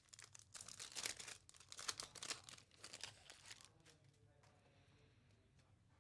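Foil wrapper of a pack of Topps Chrome baseball cards being torn open and crinkled by hand, a quick run of crackling that stops about three and a half seconds in.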